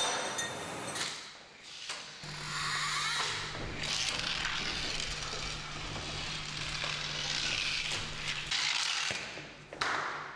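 Mechanisms of a Rube Goldberg kinetic sculpture running. A steady low hum starts about two seconds in and stops about nine seconds in, under continuous mechanical clattering and rattling. A couple of sharp clacks come near the end.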